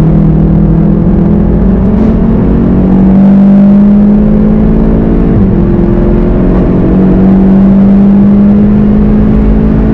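Car engine heard from inside the cabin, pulling hard under acceleration: its note climbs steadily, drops with an upshift about five seconds in, then climbs again, over low tyre and road rumble.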